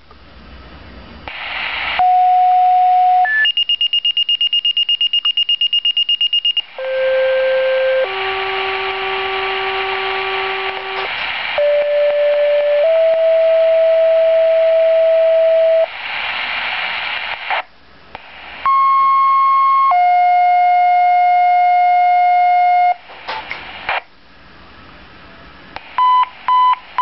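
Motorola fire pager's speaker playing a nightly test of two-tone sequential dispatch tones: several pairs of steady tones, a short tone then a longer one at another pitch, with radio hiss between the sets. About four seconds in comes a rapid high pulsing alert tone, and near the end the pager sounds short repeated beeps.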